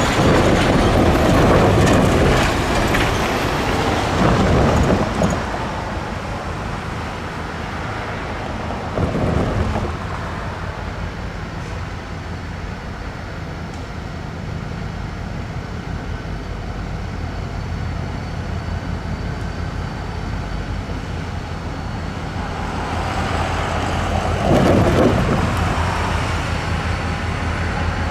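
Diesel freight train running, a steady low engine drone under louder rumbling surges of wheel and rail noise: about a second in, around four to five seconds, near nine seconds and again near twenty-five seconds.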